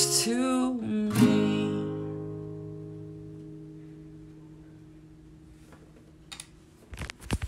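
Acoustic guitar song ending: a held sung note that bends, then one last strummed chord that rings out and fades over several seconds. A few sharp clicks come near the end.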